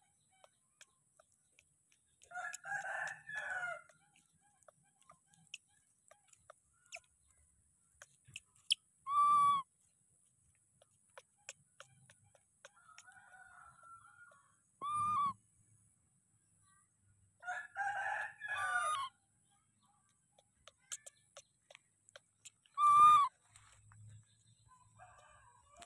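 A rooster crows twice, about two seconds in and again at about eighteen seconds. Between and after the crows come three short, loud, clear single calls from a baby macaque, the last one near the end the loudest.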